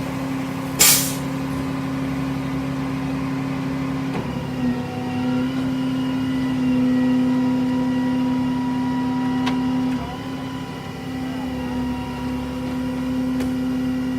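A truck's engine running steadily at idle, with a short loud burst of hissing about a second in.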